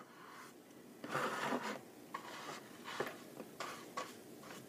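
Paintbrush rubbing paint onto the edge of an oatmeal canister: a faint longer brushing stroke about a second in, then several short strokes.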